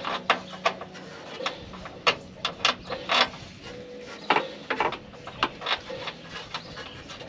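Irregular metal clicks and clinks, a couple every second in loose groups, from hand tools and bolts and washers being handled at a van's rear shock absorber mount.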